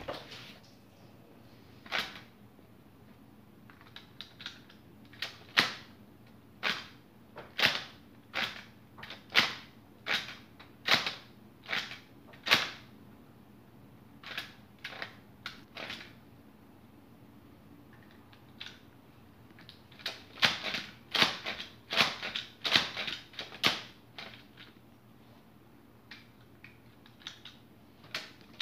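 A Lego pistol powered by spring and rubber band being worked by hand: sharp plastic clicks and snaps from its slide and firing mechanism. The clicks come singly and unevenly, stop for a few seconds, then come in a quicker run near the end.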